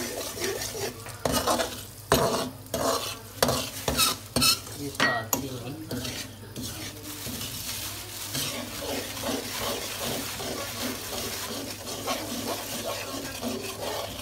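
A steel spoon stirring semolina as it roasts in ghee in a metal kadhai. It scrapes and knocks against the pan in sharp strokes over the first six seconds, over a light sizzle. After that the sound settles into a softer, steady hiss.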